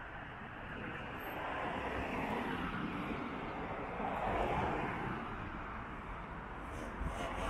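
Cars passing on an asphalt road: a steady rush of tyre and engine noise that swells to its loudest about four seconds in, then eases.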